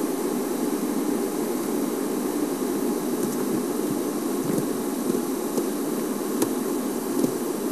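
Safari game-drive vehicle's engine running steadily, a constant low hum with hiss, with a few faint ticks in the second half.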